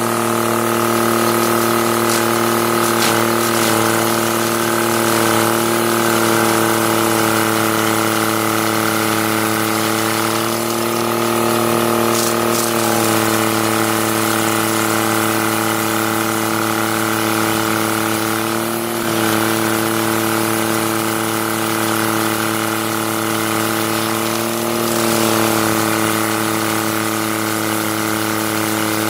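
A heavy machine's engine running at a steady speed: a constant droning hum with a few brief shifts in pitch.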